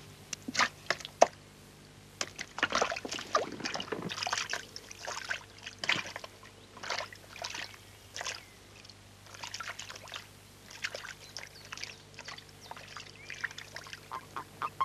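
Water splashing and trickling as a bucket of frogs and toads is emptied into a pond, heard as a run of irregular short splashes. A steady low hum lies underneath.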